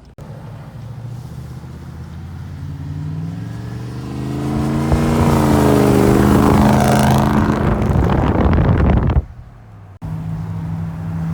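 Pickup truck engine revving up under load in snow, its pitch climbing and holding high with a rush of noise, then cutting off suddenly; a steadier, lower engine note follows near the end.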